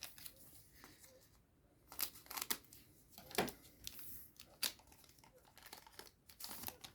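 Trading card booster pack wrapper and cards being handled: crinkling and rustling in several short, sharp bursts, fairly quiet.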